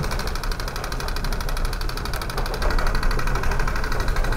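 Hong Kong MTR escalator machinery running with a fast, even clicking over a low rumble, getting a little louder about two-thirds of the way in.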